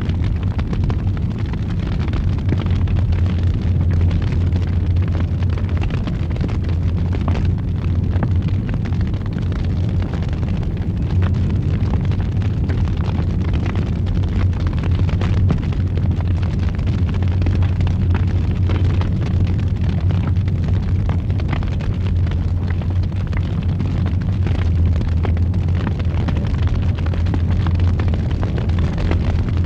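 Fire roaring in a fireplace: a steady low rumble with many small crackles and pops scattered through it.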